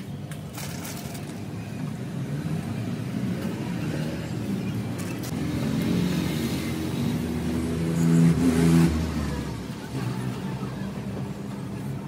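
A motor vehicle's engine passing by: the hum grows louder, peaks about eight seconds in, then fades away.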